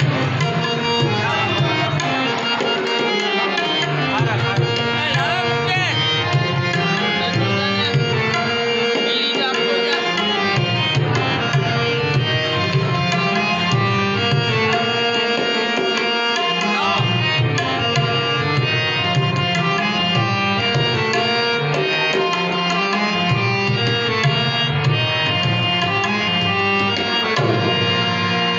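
Harmonium playing a light melody with held reed notes, accompanied by tabla.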